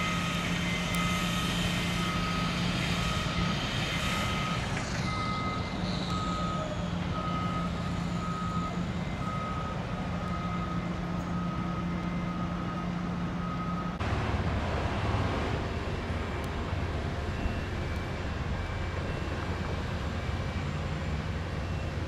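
Reversing alarm on construction machinery beeping steadily, evenly spaced, over a vehicle engine's steady drone. About 14 seconds in the beeping and drone stop and a lower engine rumble takes over, with a fainter, higher-pitched reversing beep from another machine.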